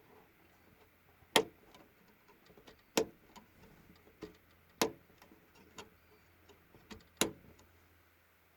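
Four sharp single clicks at uneven intervals of about one and a half to two and a half seconds, with a few fainter ticks between them, over a faint steady low hum.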